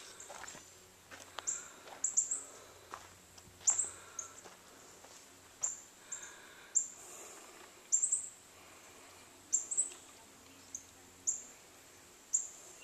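A bird chirping over and over: short, high chirps about once a second. A few soft knocks come in the first few seconds.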